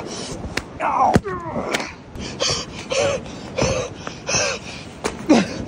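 Sneakers stepping on a bull kelp stalk and walking across wet sand. Squelching steps come about every half second, with short squeaks and a few sharp clicks.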